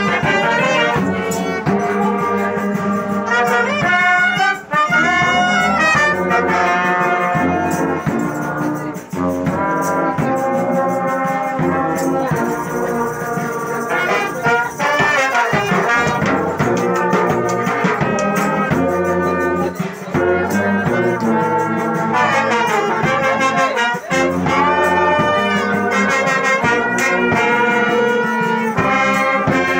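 Brass band playing a tune together, with tubas carrying the low part under trumpets and trombones.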